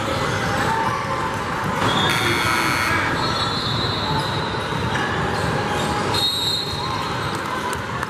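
A basketball dribbling on a hardwood gym floor, with sneakers squeaking in short high bursts several times, over a steady din of players' and spectators' voices in the hall.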